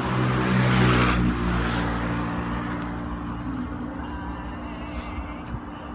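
A motor vehicle's engine running close by, with a loud rush of road noise that cuts off about a second in; the low engine hum carries on, slowly fading.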